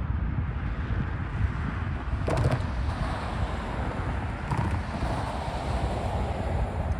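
Freight train rumbling past, with wind buffeting the microphone and a couple of short metallic clanks a few seconds apart.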